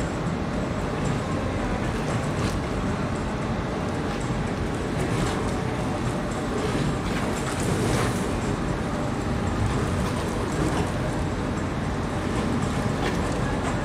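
Steady harbour ambience by a berthed container ship: a low rumble and hiss, with faint brief splashes of water lapping now and then.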